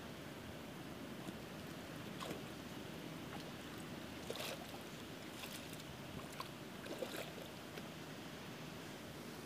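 Shallow sea water washing and trickling over a wet shore, with a few short splashy clicks of small steps in the wet ground and puddles.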